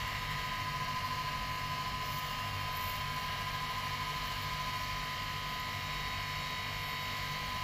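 A steady machine hum with a constant high whine over a hiss, unchanging throughout.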